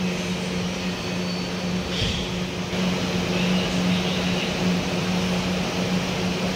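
A steady low motor hum, even and unchanging, as from a running fan or air-conditioning unit.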